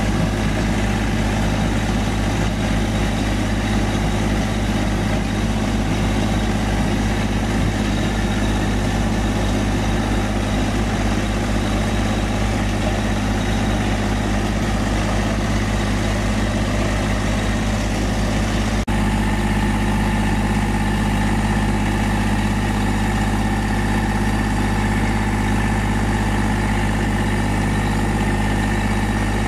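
Farm tractor engine idling steadily, a low, even running note. About two-thirds of the way in there is a short click, and after it the engine tone changes slightly.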